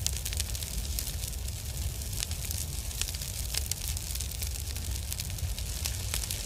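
Fire sound effect: a steady low rumble with many irregular crackles.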